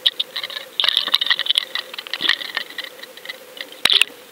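Irregular rattling and clicking of fishing tackle as a line and jig are handled at the boat's rail, densest about a second in, with a few sharp knocks near the end.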